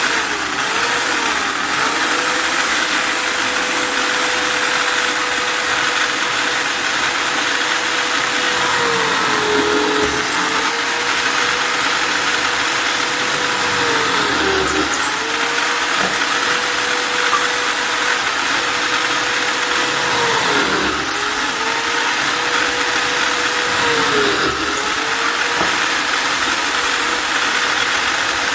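Electric drill running continuously with a steady motor whine over a loud hiss. The pitch briefly dips and recovers every four to six seconds.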